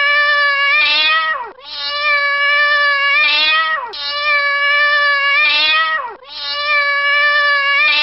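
Recorded domestic cat meowing: four long, drawn-out meows in a row, each holding steady and then sliding down in pitch at the end.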